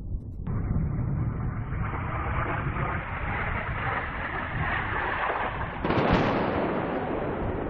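Bomb explosion heard from a distance: a long low rumble, then a sharper blast about six seconds in.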